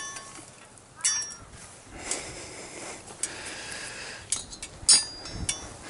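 Steel barbecue tools (tongs, spatula, fork) clinking against each other and the stand's steel bar and hooks as they are hung up. There are about half a dozen sharp metallic clinks with short ringing, the loudest about five seconds in, and a soft rushing noise in the middle.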